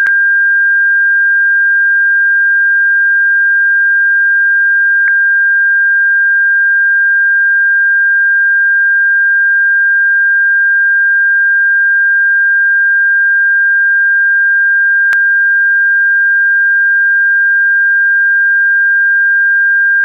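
A steady pure electronic tone held at one fixed pitch without a break, with two faint clicks about 5 and 15 seconds in.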